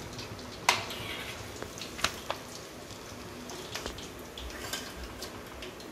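A few sharp clicks and taps, the loudest about a second in, amid light scattered crackling, as freshly fried chicken nuggets are set down on paper towel.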